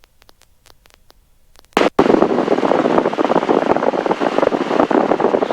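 Crackling static over the helicopter's headset and radio audio: almost nothing for the first two seconds, then the channel opens with a short burst and a dense, loud crackle that carries on to the end.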